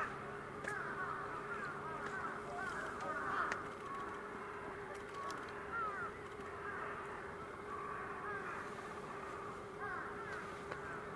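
A flock of birds calling all at once, a continuous chorus of many short overlapping calls, with a steady low hum underneath.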